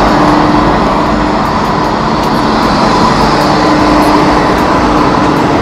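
Mobile crane truck's engine running close by: a loud, steady machinery noise with a faint hum in it.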